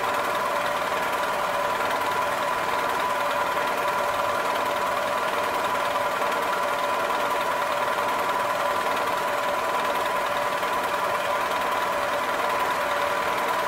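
Milling machine running steadily with a constant high whine, its end mill cutting an arc into a workpiece as the rotary table is turned.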